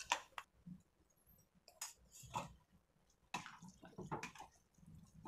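Metal ladle stirring thick, mashed sambar rice in a metal pan: soft squelching with scattered clicks and scrapes of the ladle against the pan, sparse at first and busier from a little past three seconds in.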